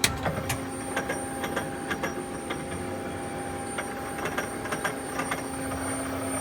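Turret of a 1997 Okuma Crown 762S-BB CNC lathe indexing, making an irregular run of sharp clicks and ticks, several a second, over the machine's steady hum. It is an abnormal noise whose source and cause the owner cannot find.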